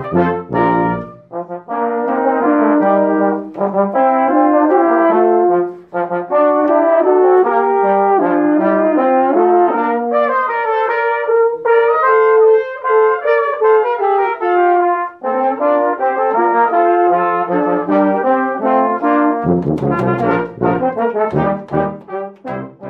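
Brass ensemble playing: long held chords for most of the time, then short, detached notes with low bass notes returning near the end.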